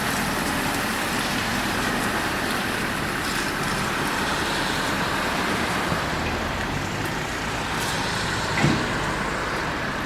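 Steady motor-vehicle and road noise, with one brief thump near the end.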